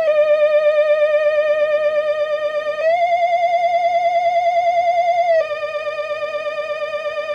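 Spooky Halloween sound-effect loop: a single eerie, wavering electronic tone with fast vibrato, swinging between a lower and a higher note; it starts low, rises about three seconds in, and drops back about five seconds in.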